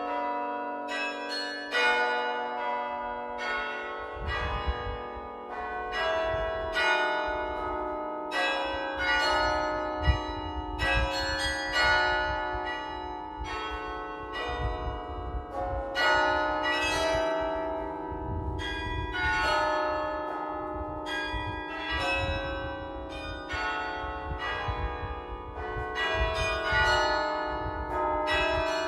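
Carillon bells played from the baton keyboard: a running melody of struck bell notes, each ringing on and overlapping the next, with a low rumble underneath from about four seconds in.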